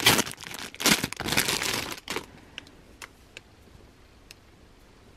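Plastic packaging bag crinkling and rustling as a marshmallow squishy toy is pulled out of it, stopping about two seconds in; after that only a few faint ticks.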